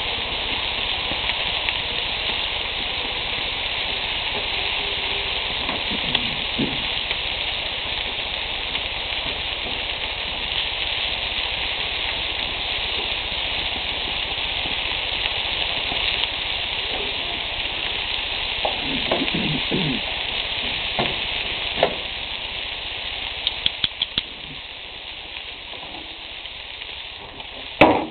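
Bacon-wrapped quail breasts sizzling and spitting on a grill, a steady frying hiss that eases off about two-thirds of the way through. There are a few quick ticks just after that, and a sharper knock near the end.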